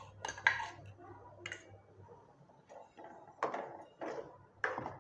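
Steel mixer-grinder jar clinking against an aluminium pot as ground coconut masala is tipped in, then a ladle knocking and scraping in the pot while stirring. There are several sharp clinks in the first couple of seconds, then a few clattering strokes near the end.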